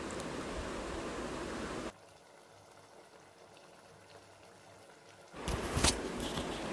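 Thick prawn gravy being stirred with a wooden spatula in a clay pot, a steady wet hiss of simmering and stirring. It cuts off about two seconds in, leaving about three seconds of near silence. Near the end stirring resumes with wet scrapes and knocks of the spatula against the pot.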